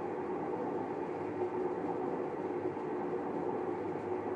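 Kenmore Oasis top-load washer running very loud, a steady drone with a constant hum, from dry, worn tub bearings.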